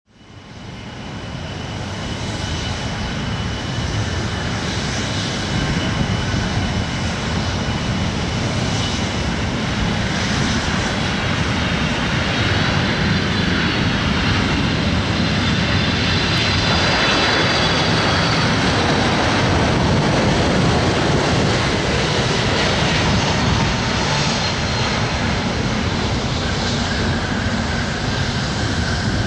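Boeing 747-400's four jet engines on a landing approach: a steady loud rumble with a high whine over it, fading in at the start. The whine wavers in pitch midway through, and the jet touches down near the end.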